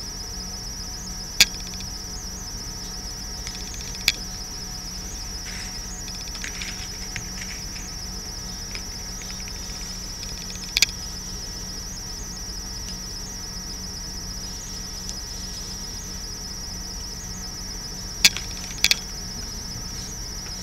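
Crickets chirping in a steady high trill, with a low steady hum beneath and a few sharp taps, two of them close together near the end.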